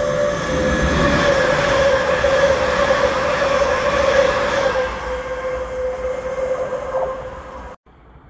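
Northern multiple-unit passenger train running alongside the platform. The wheels rumble under a steady high whine that is loudest over the first few seconds and eases about five seconds in. The sound cuts off suddenly near the end.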